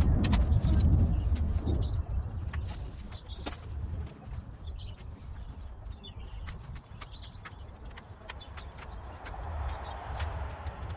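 Wind rumbling on the microphone, strongest in the first two seconds and then easing, with scattered light clicks and faint birds chirping.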